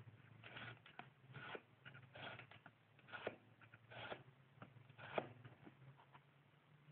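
Faint wooden clicks and scrapes from a hand-made wooden coin mechanism being worked by hand, about one a second, stopping a little after five seconds in.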